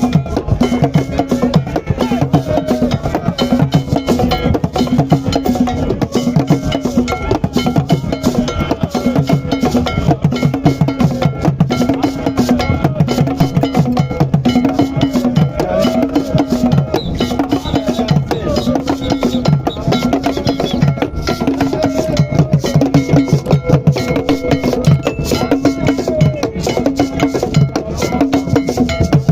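Background music with a steady beat of wood-block-like percussion and a repeating melodic figure.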